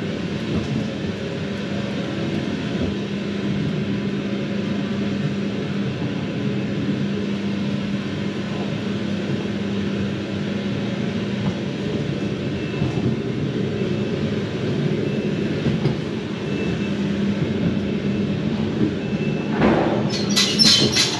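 Ghost train car rolling along its track with a steady rumble and hum. Near the end, a sudden bang is followed by a loud high-pitched sound effect that pulses about three times a second.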